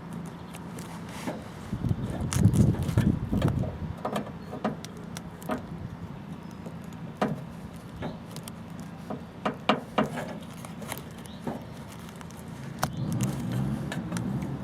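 Scattered light clicks and knocks of hands handling small parts and tools at an open car door, with a denser stretch of rustling handling about two seconds in and again near the end, over a steady low hum.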